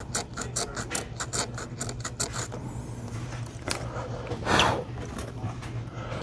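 120-grit sandpaper wrapped around an eraser, rubbed over a circuit board in quick back-and-forth strokes, about five a second, for the first two and a half seconds, sanding down through the green solder mask over a burnt trace. A loud whoosh comes about four and a half seconds in, over a steady low hum.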